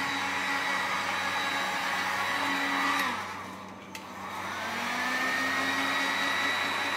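Electric heat gun's fan motor running with a steady whine. About three seconds in it is switched off and the whine winds down; a click about a second later, and it spins back up with a rising whine to full speed.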